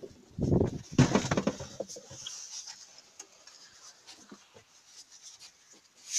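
Bumps, rubbing and clicks of someone climbing into a pickup truck cab while handling the phone. A burst of thumps and rubbing comes in the first two seconds, then faint scattered clicks, and a sharp click near the end.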